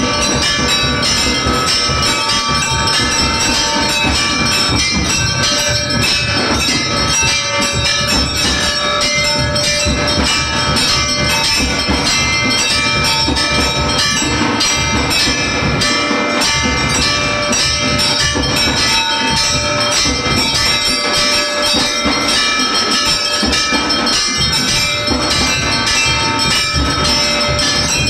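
Temple bells ringing continuously and loudly during an aarti, over a fast, even clattering beat.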